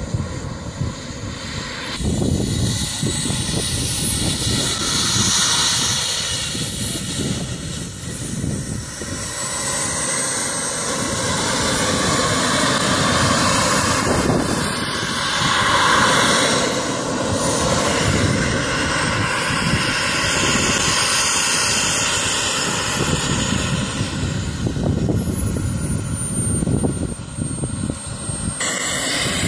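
Model jet turbine in a radio-controlled BAE Hawk running as the model taxis, its high whine rising and falling in pitch with the throttle over a steady rush of exhaust noise; the whine cuts off suddenly near the end.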